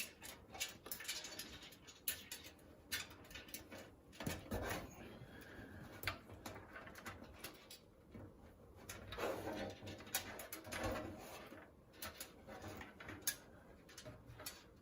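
Faint clicks and rustles of front-panel cables being pulled through a PC case's cable cutouts. A few soft, low-pitched sounds come about four seconds in and again between nine and eleven seconds in.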